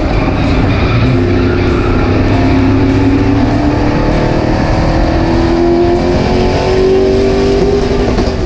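Super stock race car's V8 engine at speed on the track, heard from inside the cockpit. Its note climbs gradually through the middle and eases a little near the end. The engine is firing on all eight cylinders after its repairs.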